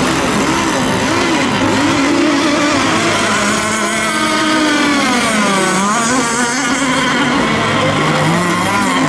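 Several radio-controlled racing boats running at full throttle together. Their high engine whines waver and glide up and down. Around the middle, one boat's pitch dips and then climbs again.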